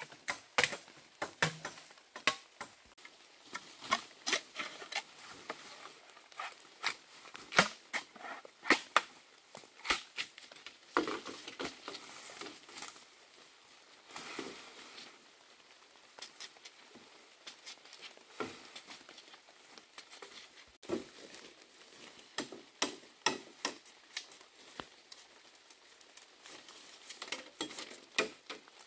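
Machete chopping and trimming bamboo stalks: sharp, irregular knocks and cracks, several a second at times, with pauses between bursts.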